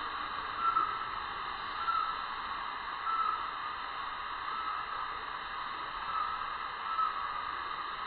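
A steady high-pitched hissing drone with a short, slightly louder pulse about once a second, and no low rumble.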